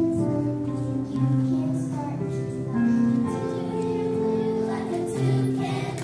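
Children singing a song together, with music.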